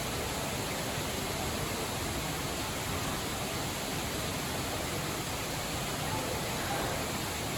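Steady rushing noise of running water, with a faint voice in the background near the end.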